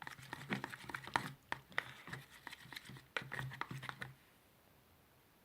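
Irregular clicks, taps and crinkling from hands handling slime-making things at close range, stopping about four seconds in.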